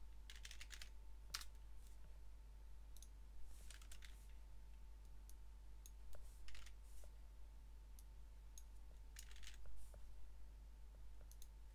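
Faint bursts of typing and clicking on a computer keyboard, scattered through the stretch, over a steady low hum.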